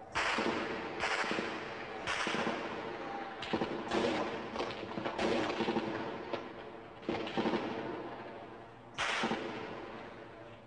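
Gunfire: a string of sharp bursts, about eight in all, each cracking out suddenly and trailing off over about a second. The rest is fitful, with a longer lull in the middle and a last loud burst near the end.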